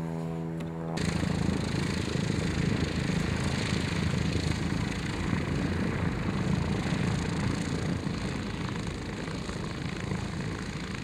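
A light aircraft's piston engine running steadily close by, a rough, even drone. It follows a steady hum in the first second, which stops abruptly.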